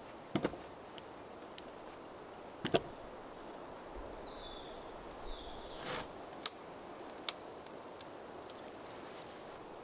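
Several sharp knocks from handwork at the base of the wooden cabin steps, the loudest near three seconds in, with fainter clicks later. A bird gives a short falling call near the middle.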